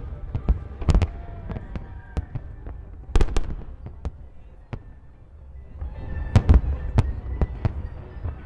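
Aerial fireworks shells bursting in a rapid, irregular string of sharp bangs with a low rumble beneath, briefly easing off in the middle before a loud cluster of bursts.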